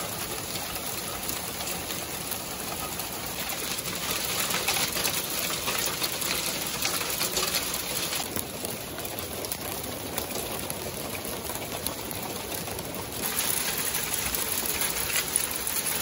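Hail mixed with rain pelting a wooden deck, railings and roof: a dense, steady patter of countless small hits, heavier about four seconds in and again near the end.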